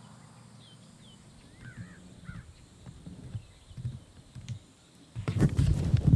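Faint short bird chirps and soft low thuds, then from about five seconds in loud rustling and crunching close to the microphone from the camera being handled and moved.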